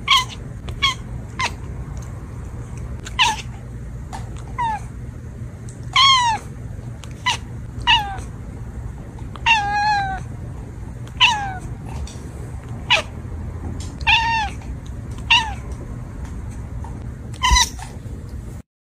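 A long-haired tabby-and-white cat meowing over and over: about fourteen short meows, most falling in pitch, with one longer drawn-out meow near the middle. A steady low hum runs underneath.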